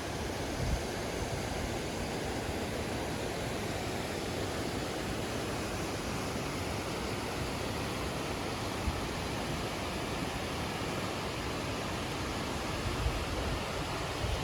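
Strong wind buffeting the microphone: a steady rushing noise with irregular low thumps from the gusts, cutting off suddenly at the end.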